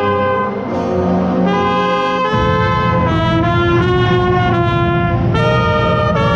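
Marching band brass section playing sustained chords that change every second or so, with one brass horn right at the microphone. A heavier low end joins about two and a half seconds in.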